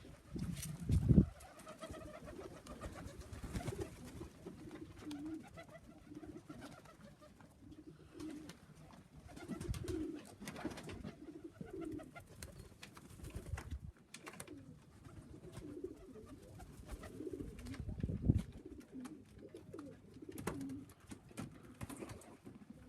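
Pigeons cooing repeatedly in the loft, with a few low thumps, the loudest about a second in.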